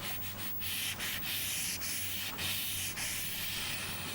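Rubbing strokes of a hand-held drawing or erasing tool across a writing surface, each stroke a scratchy hiss broken by short pauses. A steady low electrical hum runs underneath.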